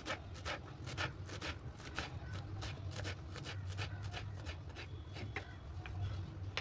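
Kitchen knife chopping fresh fenugreek leaves on a wooden cutting board: quick, irregular knocks of the blade on the board, several a second, thinning out near the end. A steady low hum runs underneath.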